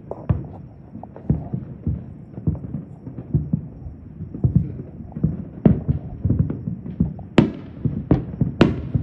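Distant fireworks going off in an irregular string of booms and pops, a few each second, with a couple of sharper, brighter cracks near the end.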